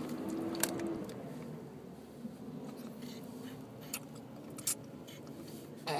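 A baby's brief held vocal sound at the start, then faint scattered clicks and rustles as she sucks on and handles a plastic baby bottle, with a short falling squeak near the end.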